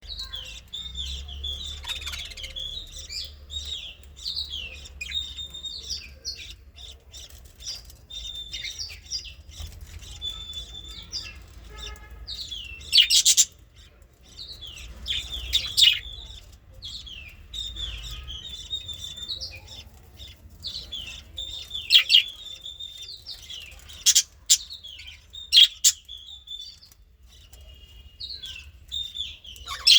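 Budgerigars chirping and chattering in quick, continuous warbles, broken several times by a louder, sharp call.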